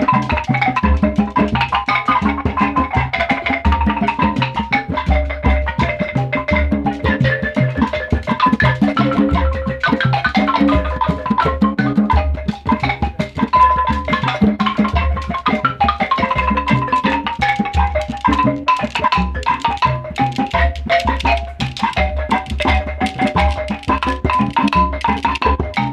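Music with fast, busy percussion, a bright melodic line of short notes and a heavy, pulsing bass beat.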